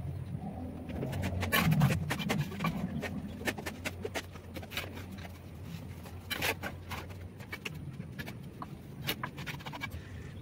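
Bricklaying: a trowel scraping mortar and tapping bricks into place on the top course of a wall, a run of sharp clicks and scrapes, loudest about two seconds in.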